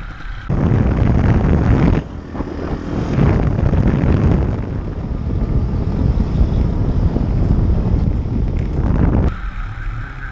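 Pit bike ridden at road speed, wind buffeting the microphone over the engine; the sound jumps abruptly louder about half a second in, drops at about two seconds, and falls back near the end.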